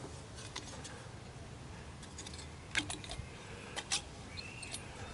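A removed circuit board with a metal shield can being handled and turned over: a few light clicks and taps, the strongest two in the middle of the stretch, over a low steady background.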